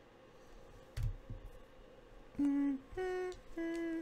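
A person humming a tune: a run of short held notes, each under half a second and shifting in pitch, starting about two and a half seconds in. A soft low thump comes about a second in.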